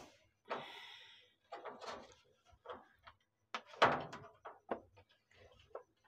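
Hands handling the plastic drain pump outlet and drain hose of a top-load washing machine, which is being disconnected to check for a blockage: a scattered series of short plastic clicks and knocks, the loudest about four seconds in.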